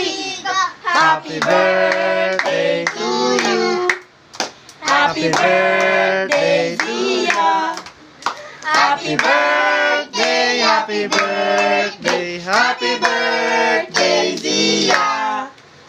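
A child and adults singing together, with rhythmic hand clapping throughout.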